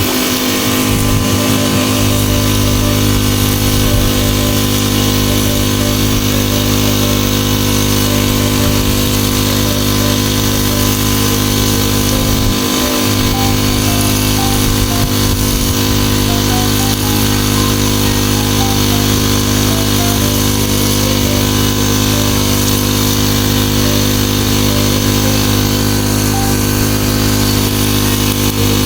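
A small engine running steadily at a constant speed, with an even, unchanging drone.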